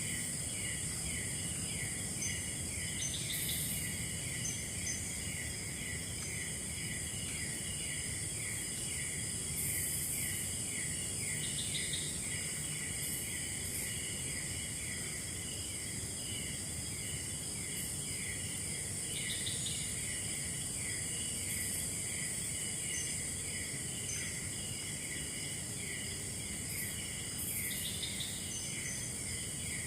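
Forest insect chorus: a steady high-pitched drone over a rhythmic chirping of about three chirps a second, with short bursts of other insect calls every few seconds.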